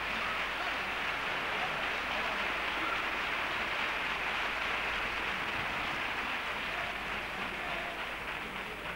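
Theatre audience applauding, a steady, dense clapping that eases slightly near the end.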